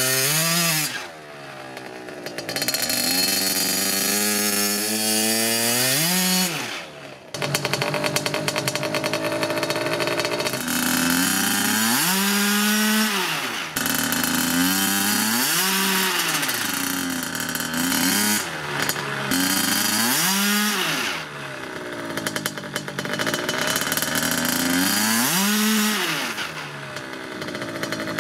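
Small mini motocross bike engine revved hard over and over during a burnout, rear wheel spinning in loose dirt. The pitch rises and falls repeatedly, about every two seconds in the second half, with a couple of brief drops in the first part.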